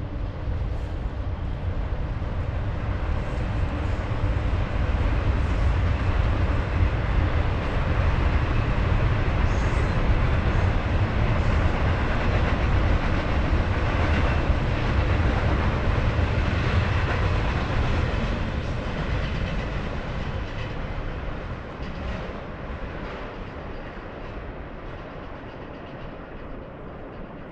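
A train passing by with a heavy, low rumble. It grows to its loudest about halfway through, then fades away over the last several seconds.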